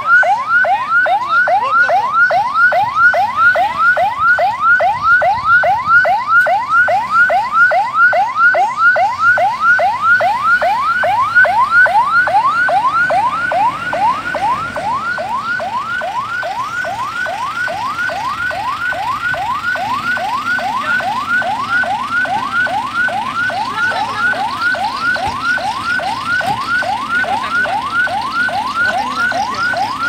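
Ambulance electronic siren on a fast yelp: quick rising wails repeating about three times a second, unbroken. It becomes softer about halfway through.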